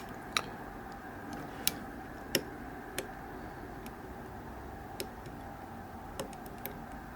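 Hook pick and bottom-of-the-keyway turning tool working the pins of an EVVA GPI lock cylinder: light metallic clicks at irregular intervals, about seven, over a faint steady hum.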